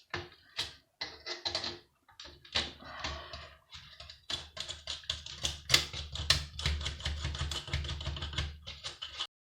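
Hand tools and screws clicking, tapping and rattling on the metal chassis of a Sky TV box as it is unscrewed and taken apart: many quick irregular clicks, joined by a low rumble of handling from about halfway through. The sound cuts off suddenly near the end.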